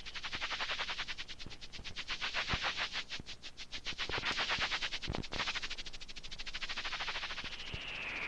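Rapid pulsing sound effect on a film soundtrack, about ten pulses a second, swelling in the middle and fading toward the end.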